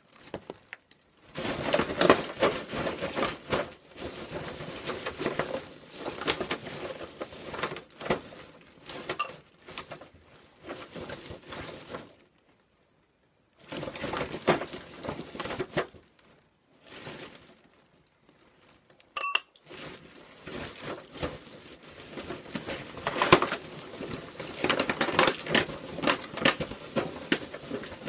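Paint being splashed and flicked onto a canvas: irregular bursts of clattering, tapping and splattering, broken by short pauses of a second or two. A brief high squeak sounds about two-thirds of the way in.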